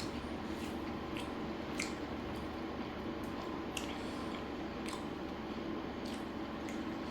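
Close-up wet chewing and mouth sounds of someone eating chicken biryani, with short squishy clicks every second or so over a steady background hum.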